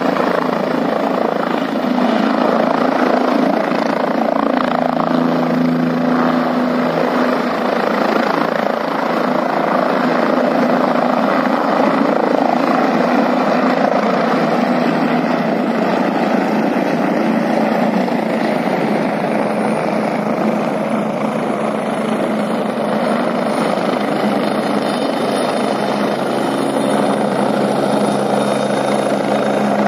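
Helicopter running at a mountain helipad: a steady, unbroken rotor-and-engine noise with a few low steady tones, holding the same loudness throughout.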